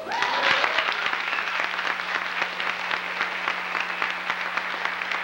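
Audience applauding, with a whoop of cheering in the first second, as a dance piece ends.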